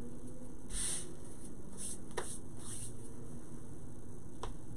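Quiet hand-handling noises at a craft table: a few soft rustles and two light clicks over a steady background hiss.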